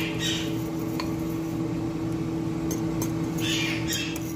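Metal fork stirring flour in a bowl: scratchy scraping swishes near the start and again about three and a half seconds in, with a few light clicks of the fork against the bowl, over a steady low hum.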